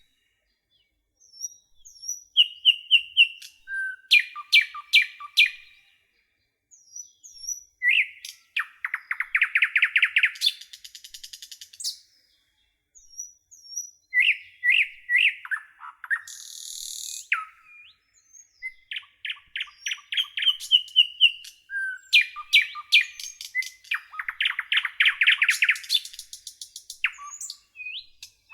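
Garden songbirds singing in phrases of quick high chirps and fast trills, each a few seconds long with short pauses between, and a brief high hiss about two-thirds of the way through.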